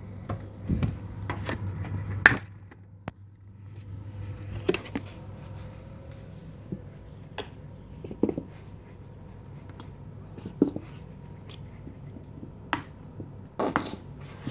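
Kitchen handling noises: scattered knocks and clicks of things being picked up and set down on a counter. A steady low hum stops with a loud click a little over two seconds in.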